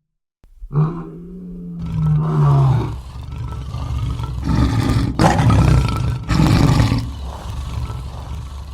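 Lion roaring. After a brief silence comes a long drawn-out call that falls slightly in pitch, followed by a series of rougher grunting roars that are loudest past the middle.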